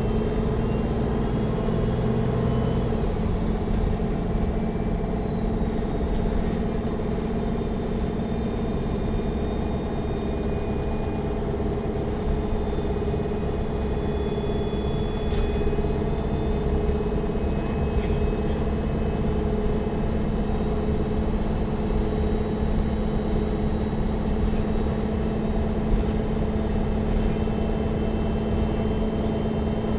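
Neoplan N4516 Centroliner Evolution bus engine running at a steady, unchanging pitch, heard from inside the passenger cabin. A few seconds in, a thin high whine falls in pitch.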